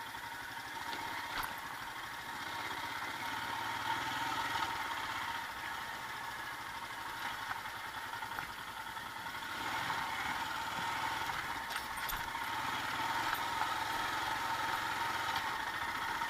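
Royal Enfield Himalayan's single-cylinder engine running steadily as the motorcycle rides slowly along a rough, muddy dirt track, getting a little louder from about ten seconds in.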